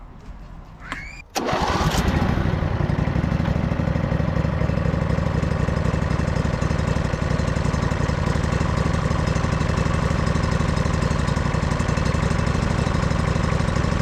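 Riding lawn tractor's Briggs & Stratton engine started on the key on choke, catching about a second and a half in and then running steadily. It now starts on the key because the dirty ground of its starter solenoid has been cleaned.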